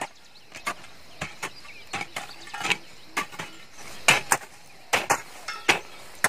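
Two hand hoes chopping into dry, clodded earth: irregular sharp strikes, about two a second, some coming in quick pairs as the two hoes land almost together.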